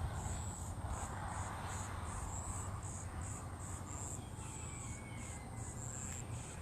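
Crickets chirping in a steady rhythm of short, high pulses, about three a second, over a low steady hum.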